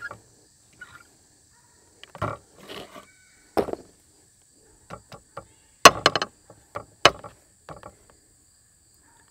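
Scattered metallic clicks and knocks from a folded Chiappa Little Badger single-shot .22 rifle and its wire-frame stock as it is handled and set down on a wooden bench. The sharpest clack comes about six seconds in.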